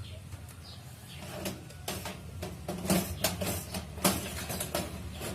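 Irregular clicks, knocks and scraping as an optical drive is slid into the front drive bay of a desktop computer case, with the sharpest knocks about three and four seconds in, over a steady low hum.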